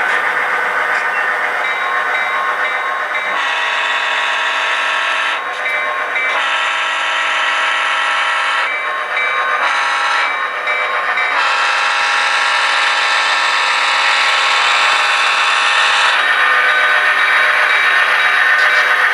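Sound-equipped model Clinchfield F-unit diesel locomotive running, its diesel engine sound playing steadily from the model's speaker, getting louder as it approaches. Over it the horn sounds two long blasts, a short one and a final long one, the grade-crossing signal.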